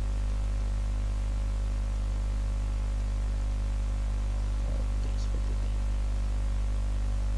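Steady electrical mains hum at 50 Hz and its overtones, with a faint hiss, running unchanged throughout.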